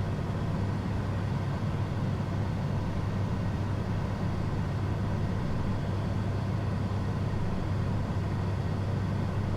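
Steady cockpit noise of a Pilatus PC-24 twin-engine business jet in descent: an even rush of air and engine hum with a low drone, unchanging throughout.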